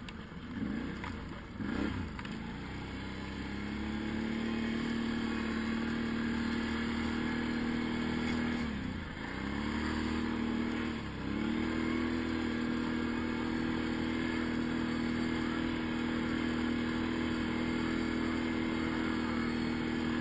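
Quad bike engine revving unevenly for a couple of seconds, then running at a steady pitch. Its note drops and comes back up twice near the middle as the throttle eases off and opens again.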